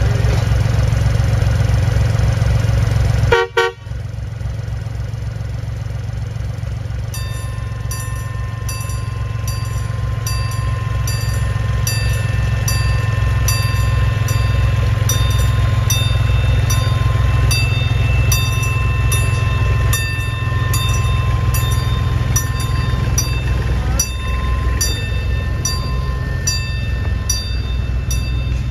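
A steam locomotive's bell ringing steadily at about two strokes a second, starting some seconds in, over a heavy low rumble.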